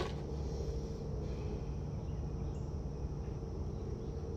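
Steady background noise with a faint constant hum and no distinct events.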